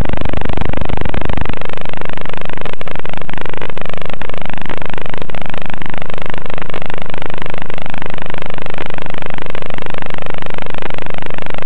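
Loud, distorted buzz of a micro quadcopter's motors heard over the FPV video link's audio, wavering up and down in pitch with a constant hiss.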